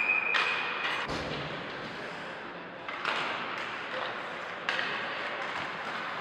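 Ice hockey rink during a game: a referee's whistle holds one steady high note and stops about a second in. Three sharp knocks of play follow over the arena's steady background noise.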